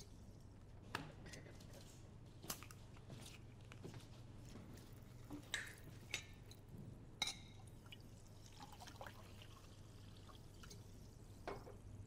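Faint, scattered clinks and knocks of glass bottles and kitchenware being handled and set down, about six in all, one with a short glassy ring, over a low steady room hum.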